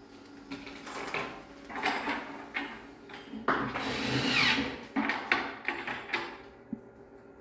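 Kitchen cabinet assembly work: irregular knocks and clatter of wooden cabinet parts and hand tools, with a short rising whine about halfway through.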